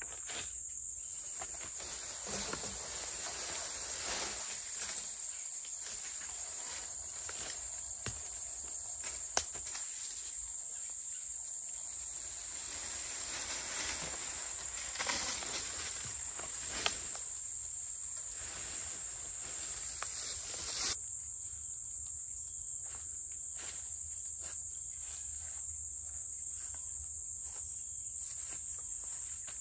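A steady, high-pitched chorus of summer insects, with occasional rustling and footsteps in brush and two sharp knocks, about a third of the way in and again just past halfway.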